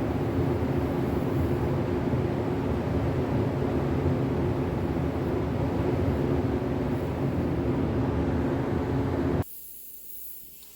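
Large electric shop ventilation fan running with a loud, steady hum and air rush. It cuts off suddenly about nine and a half seconds in.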